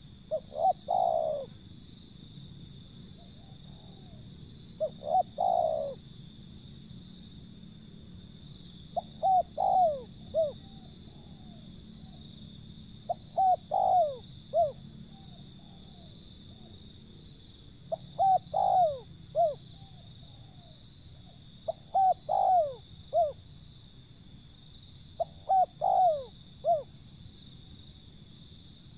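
Spotted dove (tekukur) cooing: seven short phrases of a few low coos each, repeated about every four seconds.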